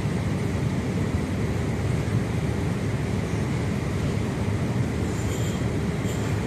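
Steady low rumble of city traffic, unbroken and even in level.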